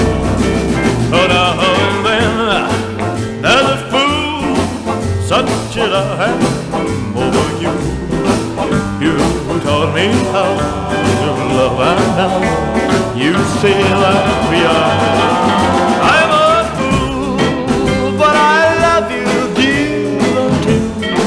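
Background music: an instrumental passage in a country-tinged rock-and-roll ballad, with a lead melody over the band.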